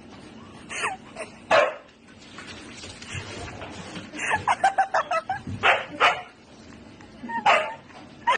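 Siberian husky barking: short, sharp barks spaced a second or more apart, with a fast run of about ten quick sounds about halfway through.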